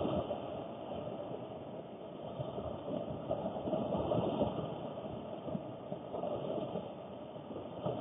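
Heavy rain drumming steadily on a car's roof and rear window, heard from inside the cabin as a dense, low rumble that swells and eases.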